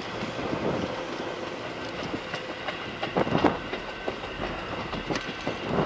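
Tobu 10030 series electric multiple unit cars being hauled past by a locomotive, their wheels rolling steadily on the rails and clattering over rail joints, loudest about three seconds in.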